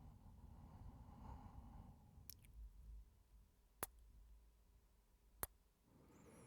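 Faint breathing close to the microphone, a soft sigh-like breath in the first two seconds, then two sharp single clicks about a second and a half apart.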